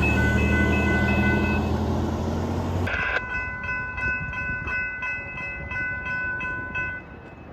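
Diesel freight locomotive horn sounding over a heavy engine rumble. About three seconds in the rumble cuts off abruptly, and the horn carries on over a rapid clicking until it stops near the end.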